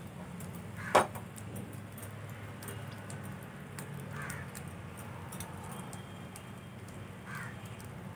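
Egg omelette frying gently in a nonstick pan on a gas burner: fine crackling sizzle over a low steady hum. One sharp knock about a second in.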